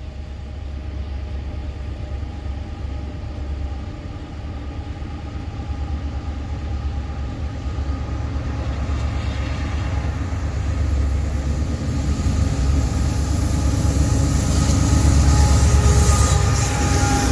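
A CSX freight train led by GE diesel locomotives approaching, its low engine rumble growing steadily louder as it nears, with faint steady tones coming in over the last half.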